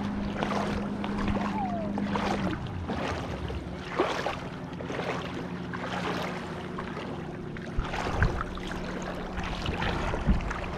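A boat's motor runs steadily with water slapping and wind, its hum dropping slightly in pitch a couple of seconds in; a few light knocks come near the end.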